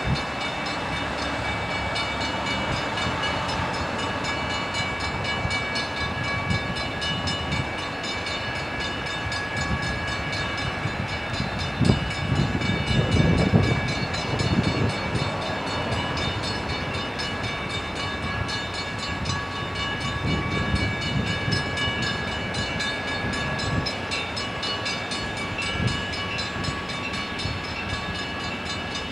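A train rolling past with steady wheel-on-rail noise. There is a cluster of heavier low knocks about halfway through and a few more later.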